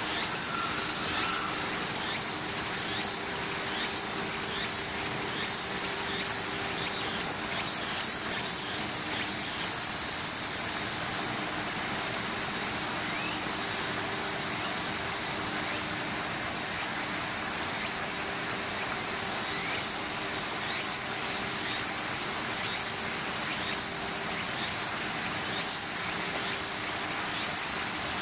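A summer cicada chorus: a steady, high-pitched drone with regular pulsing strokes on top, about one or two a second. The pulsing fades out in the middle of the stretch and comes back near the end, over a faint low steady hum.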